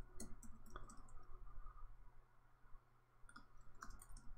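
Faint computer keyboard keystrokes and mouse clicks, over a low steady hum: a short run of clicks in the first second, then a few more about three and a half to four seconds in.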